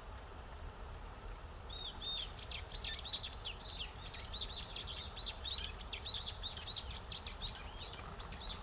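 Eurasian tree sparrows chirping in a rapid, dense run of short high chirps that starts about two seconds in and keeps going, over a steady low background rumble.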